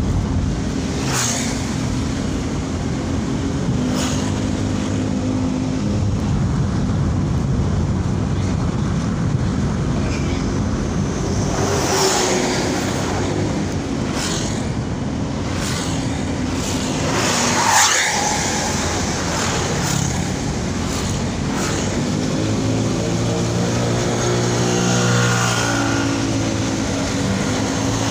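Daihatsu Ayla's 1.0-litre three-cylinder engine and tyre noise heard from inside the cabin while driving: a steady drone with a few brief rushes. Near the end an engine note climbs in pitch and then drops back.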